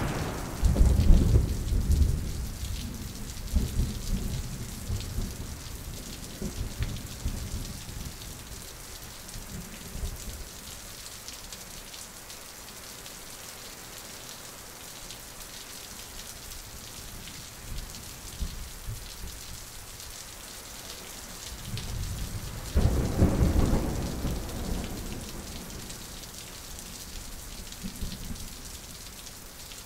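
Thunderstorm: steady rain hiss, with a roll of thunder that rumbles and fades over the first ten seconds or so and a second roll a little over twenty seconds in.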